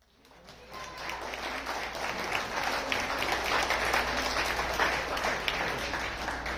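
Audience applauding, a dense patter of many hands clapping that fades in over the first second and then holds steady.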